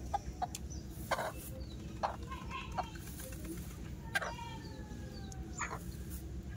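Chickens clucking in short, separate calls, with one longer drawn-out call with a slowly falling pitch about four seconds in.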